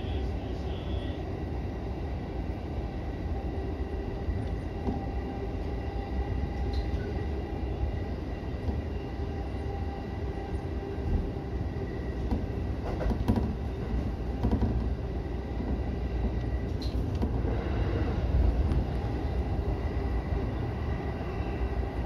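JR East E231-series electric train running along the track, heard from the cab: a steady low rumble with a faint even tone over it, and a few short clicks and knocks about halfway through.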